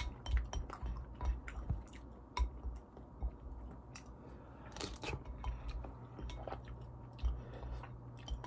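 Close-up chewing of a mouthful of curry rice: irregular wet mouth clicks and smacks, with a few louder ones.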